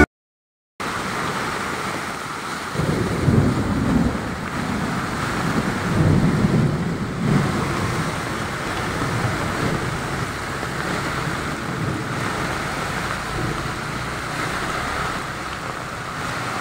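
Heavy rain on a flooded road: a steady hiss that starts just under a second in, with low rumbling that swells several times in the first half.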